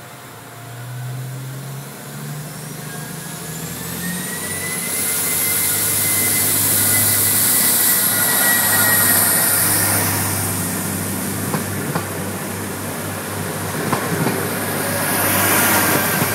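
PESA ATR220 diesel multiple unit pulling away and accelerating past: the diesel engines rev up with a rising whine, growing louder as the cars go by. A few sharp clicks come in the second half, and the sound swells again near the end as the last car passes close.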